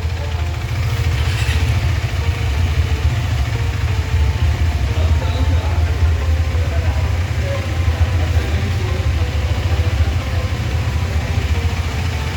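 Motorcycle engine idling steadily with a fast, even low pulse.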